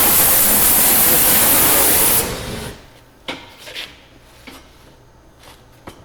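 Gas torch hissing steadily while heating a driveshaft yoke, stopping about two seconds in; a few light metal clicks and knocks follow.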